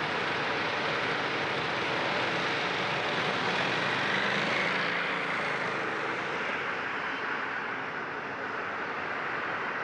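Steady engine roar on an airport apron, from jet aircraft and a slow motorcade of cars and police motorcycles. The roar swells slightly about four seconds in.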